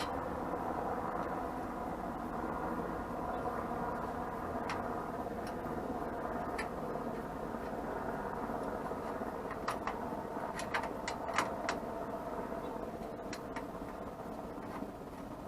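Sharp metallic clicks and clinks of hand tools working on a steel hitch bracket, a few scattered and then a quick cluster about ten seconds in. A steady mechanical drone runs underneath.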